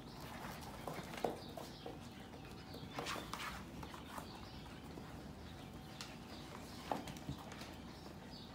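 Sheepadoodle puppies scrambling on a tile floor and against a plastic pen gate: faint, scattered clicks and scratches of claws and paws, with two sharper knocks, one about a second in and one near the end.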